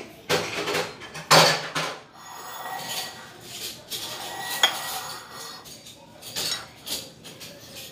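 Tableware handled on a table during a meal: a few short clatters and scrapes of a bowl, chopsticks and cup, with one sharp clink a little past four and a half seconds.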